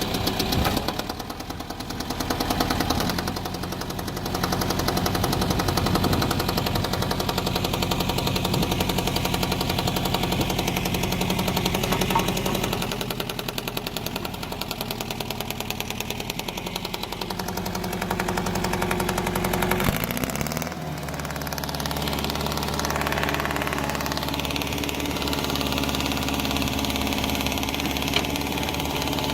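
John Deere 410 backhoe loader's engine running and working, its speed rising and falling; about twenty seconds in the pitch drops and it settles into a steady lower running note.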